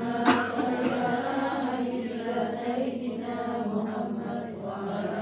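Group of women chanting an Arabic prayer together in unison, a sung shalawat or dhikr that runs on without a break.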